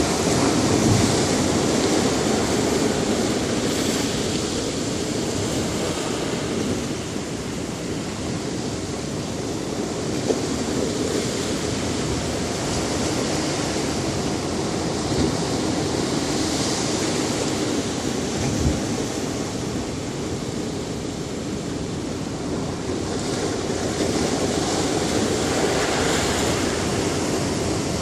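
Ocean surf: a continuous rush of waves washing onto a beach, swelling and easing slowly every several seconds.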